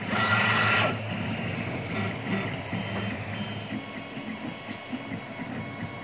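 Monoprice Select V2 3D printer running a print: its stepper motors whine in short tones that change pitch as the print head and bed move, over a steady mechanical hum.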